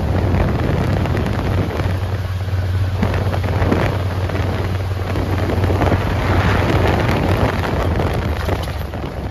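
Side-by-side UTV engine running steadily with a constant low hum while driving along a dirt track, with wind buffeting the microphone.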